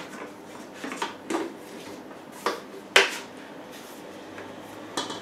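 A handful of short plastic clicks and knocks as the vegetable-cutter lid of a Moulinex Companion food processor is unlocked, turned and lifted on its steel bowl, the sharpest about three seconds in.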